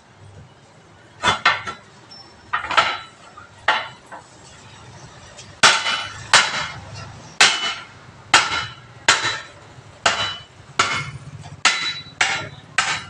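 Hammer blows on the steel wheel rim of a tractor-trolley tyre, a ringing metal clank with each strike, working the tyre bead loose from the rim for a puncture repair. A few scattered blows come first, then a steady run of about one strike every three-quarters of a second.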